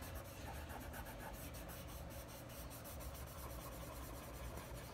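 Faint scratchy rubbing of a cotton swab blending HB graphite on drawing paper in small repeated strokes.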